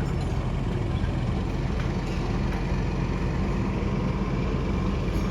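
Diesel engine of the Diema 138 narrow-gauge shunting locomotive running steadily, a low, even hum.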